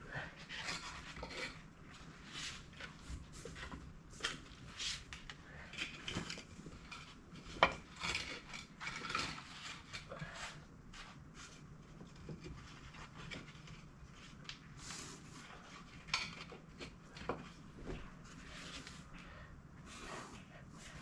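Irregular clinks, knocks and scraping of hand tools against metal parts during work on a machine's track, with one sharper knock about a third of the way through.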